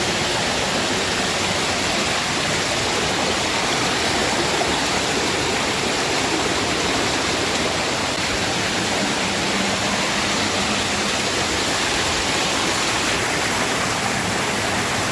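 Waterfall and mountain stream rushing steadily: a constant, even hiss of falling water with no break.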